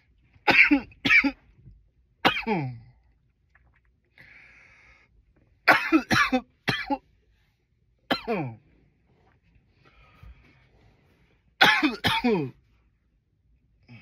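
A man coughing loudly in bouts: two coughs, then one, a run of four, one more, and a closing run of three, each cough trailing off in a falling voiced tail. A breath is drawn in between some of the bouts.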